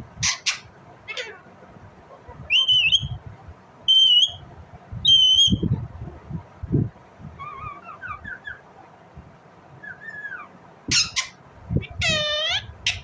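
Indian ringneck parakeet calling: three loud, clear, piercing calls about a second apart, then softer short chirps, and near the end a harsh squawk followed by a quick wavering run of notes.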